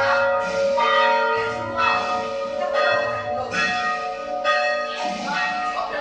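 Church bells rung by pulled ropes, tolling a requiem knell for the dead. A new stroke comes about once a second, each one ringing on over the next.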